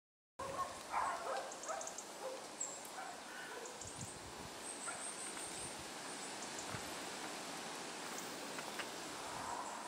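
Outdoor ambience: a steady hiss with irregular rustling and light knocks, loudest in the first two seconds.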